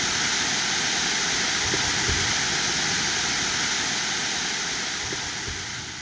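Small waterfall on Sausal Creek, running with rainy-season flow, rushing and splashing steadily; it fades away near the end.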